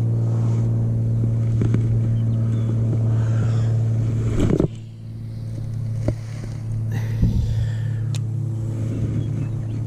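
An engine running at a steady speed, a loud, even low hum. There is a cluster of knocks about four and a half seconds in, after which the hum is somewhat quieter, and a few more single knocks later.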